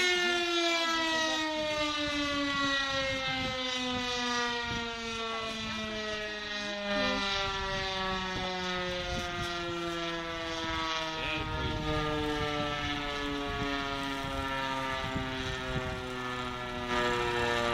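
Fire station siren winding down, one long wail falling slowly and steadily in pitch: the turnout alarm calling out the volunteer firefighters. A heavy engine runs underneath in the last few seconds as the fire engine pulls out.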